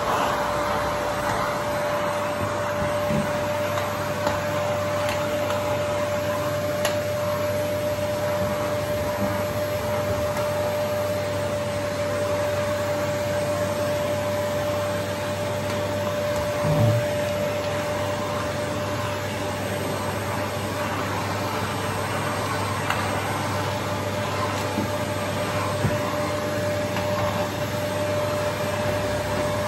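Canister vacuum cleaner running steadily with a steady whine, its brush nozzle working along the floor by the skirting board. One short thump a little past halfway.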